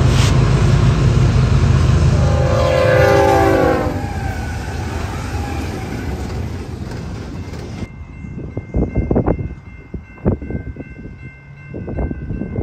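Diesel freight locomotives running as a train passes, with a locomotive horn sounding about two seconds in for nearly two seconds. Near eight seconds the sound cuts to gusts of wind buffeting the microphone, with faint steady high tones.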